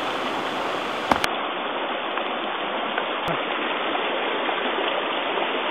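Steady rush of flowing stream water, with a brief click about a second in.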